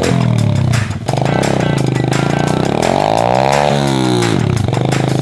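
Motorbike engine revving while the bike swings on ropes hung from a tree. Its note rises and falls in smooth sweeps, with a brief drop about a second in.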